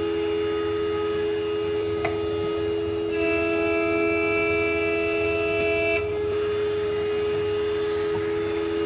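CNC engraving machine's spindle running with a steady whine while the cutter mills a flat plate. A higher tone with several pitches, from the cut, sets in about three seconds in and stops about three seconds later. There is a brief tick about two seconds in.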